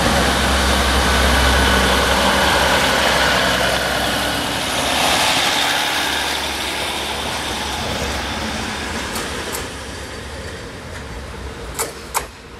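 Diesel railcar running past and pulling away, its engine hum and wheel noise loud at first, then fading over several seconds. Two sharp clicks near the end.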